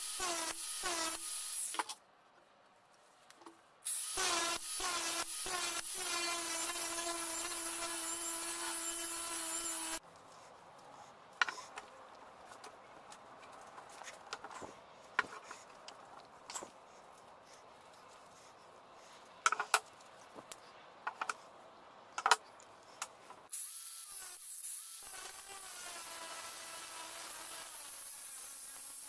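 Angle grinder cutting into a steel circular saw blade, first in short pulses, then running steadily after a brief pause, and stopping about ten seconds in. A quiet stretch follows with a few sharp metal clinks as a steel tube is handled. Near the end the grinder runs again, more quietly, grinding the steel tube.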